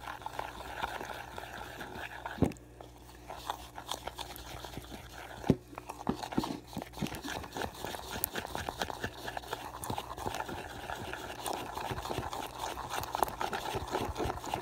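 Glue and dye being stirred in a container with a utensil: a run of quick irregular clicks and sticky scraping, with two sharper knocks of the utensil against the container about two and a half and five and a half seconds in.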